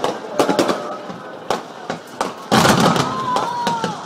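Fireworks shells bursting overhead: a string of sharp bangs, then a louder, denser run of crackling bursts from about halfway in.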